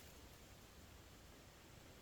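Near silence: faint, even background hiss with no distinct sounds.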